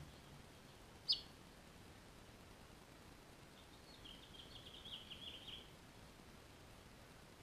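Finch chirping: one short sharp chirp about a second in, then a quick run of short chirps a few seconds later lasting about a second and a half.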